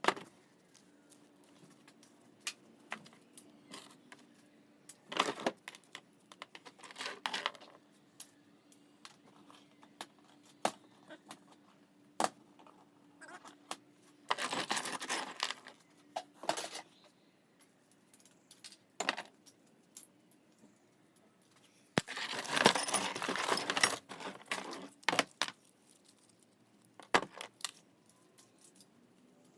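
Scrap metal pieces and tools clinking and clattering as they are handled: scattered sharp clicks, with two longer rattling bursts about halfway through and again a few seconds later.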